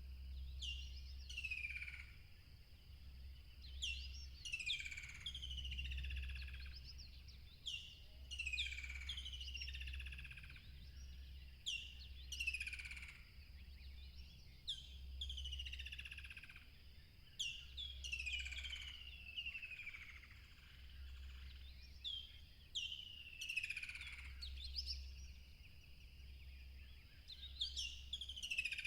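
A songbird singing short phrases of quick, falling whistled notes, repeated every two to three seconds. Underneath run a steady high-pitched tone and a low rumble.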